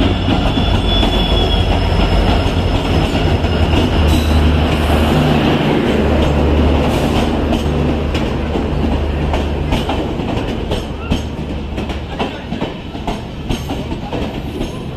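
Express train pulling in past the platform. The electric locomotive goes by with a heavy rumble, and then the coaches roll past, their wheels clacking over rail joints. The rumble is loudest in the first half and eases off, while the clacking comes through more clearly in the second half.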